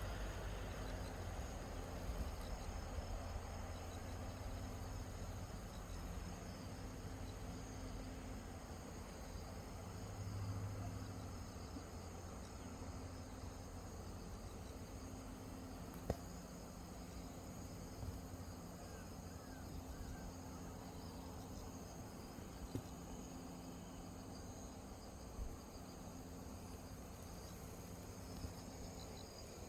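Outdoor ambience of insects chirring steadily, over a low rumble, with a few sharp clicks scattered through, the loudest about halfway.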